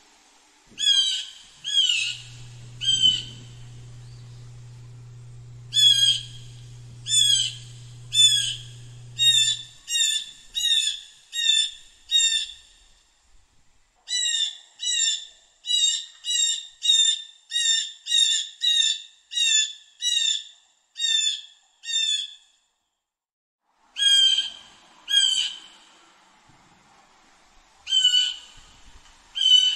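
Blue jay giving its harsh, squawking 'jay' call over and over, in runs of short calls that come about two a second at the quickest, with short pauses between runs. A low steady hum runs underneath for the first several seconds.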